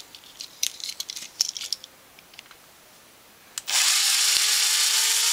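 Small clicks and knocks of handling, then a cordless drill starts about two-thirds of the way in and runs steadily, its whine rising slightly in pitch, as it bores out the rivet post of a diecast toy car's base to open it.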